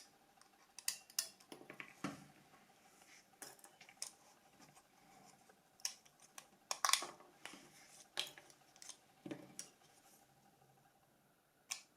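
Small plastic and metal parts of a Nokia 5510 mobile phone being pried out, handled and set down: scattered light clicks and taps, with a few louder clicks about seven seconds in.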